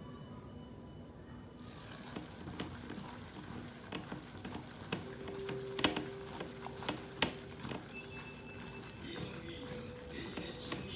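Plastic-gloved hand squelching and mixing chicken pieces in wet batter in a glass bowl, with several sharp clicks, the loudest about six and seven seconds in, where the hand knocks the bowl.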